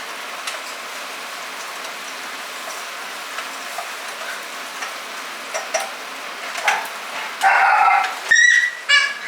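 Food sizzling in a hot pan: a steady hiss with scattered small crackles. Near the end, louder sounds break in, with a child's high-pitched voice over the top.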